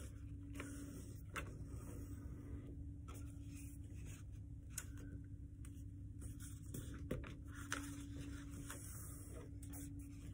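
Sheet of paper being folded and creased by hand: faint rustling with a few short crinkles, over a steady low hum.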